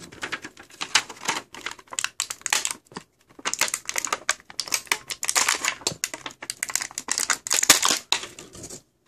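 Toy box packaging being opened and handled: a dense run of quick crinkling, rustling and clicking strokes, busiest in the second half, that stops abruptly near the end.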